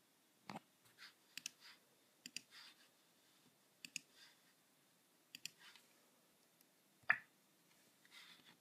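Faint clicks of a computer mouse, mostly in quick pairs, spread about a second or so apart, with soft rubbing sounds between them.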